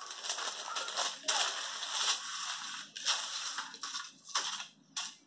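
Baking parchment rustling and crinkling under hands as raw potatoes are set down and moved about on it. The rustling comes in several stretches of a second or two, with a few light knocks as potatoes are put down.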